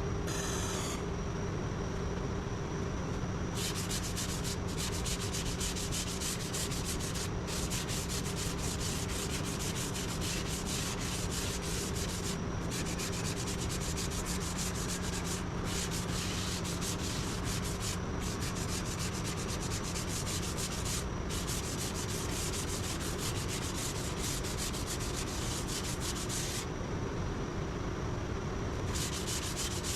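Sanding of body filler on a car's lower quarter panel: a rasping, scratchy sound that goes on in stretches of a few seconds with brief breaks and stops for a couple of seconds near the end. A steady machine hum runs underneath.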